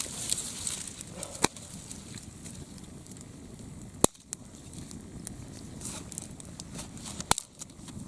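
Wood campfire crackling, with a handful of sharp pops spread irregularly over a low steady hiss.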